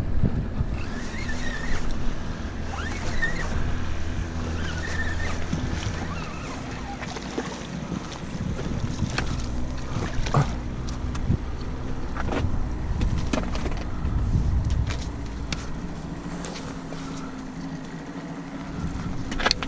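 A motorboat engine droning steadily, easing off after about six seconds, with wind on the microphone and scattered sharp clicks and knocks.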